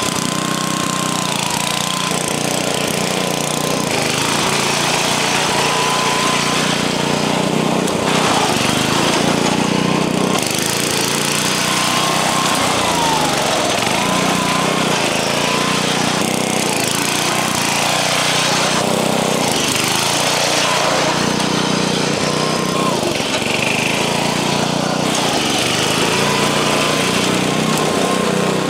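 Old riding lawn mower's small gasoline engine running with a rough, rattly note, revving up and down as it is driven.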